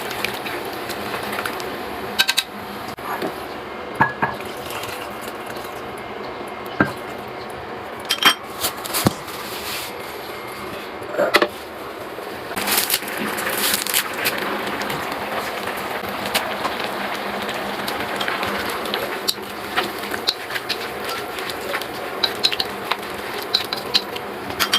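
Metal utensils clinking and scraping against pots and pans during cooking, a string of irregular sharp knocks over a steady background hiss.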